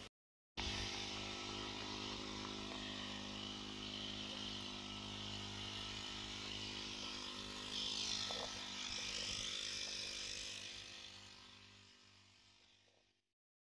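Small engine of an orchard spray pump running steadily, with a hiss over it. It fades out near the end.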